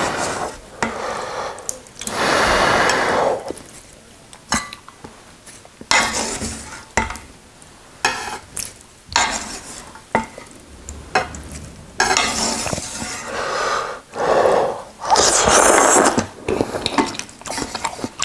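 Chopsticks stirring and lifting instant ramyun noodles in a thin aluminium pot, with small clicks and scrapes against the metal. Loud bursts of wet noodle noise about a second long come several times.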